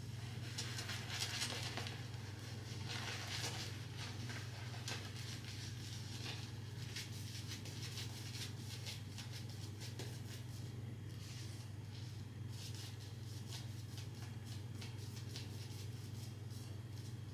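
Synthetic shaving brush scrubbing and swirling lather on the face: soft, quick, repeated bristle-on-foam strokes that come and go in clusters. A steady low hum runs underneath.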